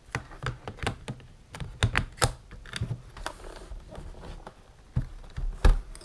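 Sharp plastic clicks and knocks as a battery pack is pushed into a Sony Vaio laptop's battery bay and latched. Near the end come two louder knocks as the laptop is turned over and set down on the desk.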